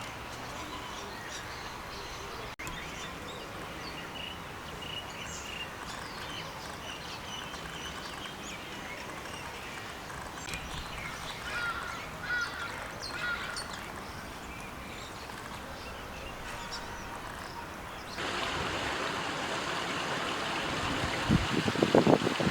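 Small birds chirping and calling over a steady outdoor background. About 18 seconds in, the background steps up to a louder, even noise, and a few louder low sounds come near the end.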